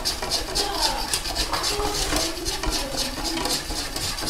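Wire balloon whisk beating flour and water into a soft mandazi dough in a bowl, the wires clicking against the bowl in rapid, regular strokes, about five a second.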